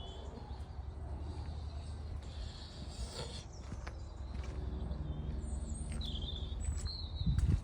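Outdoor background: a steady low rumble with several short bird chirps in the second half, and a dull low thump near the end.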